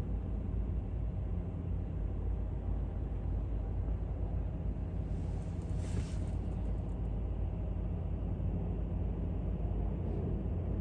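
Steady low rumble of jet aircraft engines, with a brief hiss about six seconds in.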